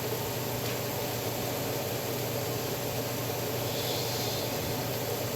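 Kitchen range hood fan running steadily: a constant rushing of air over a low electrical hum.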